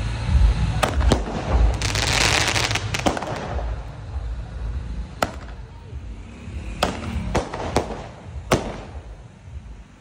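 Firecrackers and aerial fireworks going off: about eight sharp bangs at irregular intervals, with a loud hissing rush about two seconds in.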